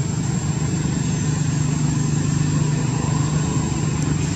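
A steady, unbroken low engine drone, like a motor running continuously, with a thin steady high whine above it.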